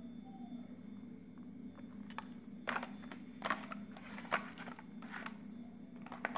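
Blister-packed Hot Wheels cars on their card backings being handled, with a few short crinkly plastic clacks starting a little under halfway in, over a steady low hum.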